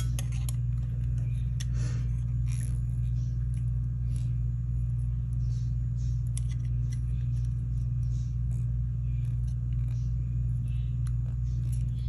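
Steady low hum, with faint scattered clicks and small scrapes of bail-making pliers working a silver spread-knife bracelet as it is bent into a curve.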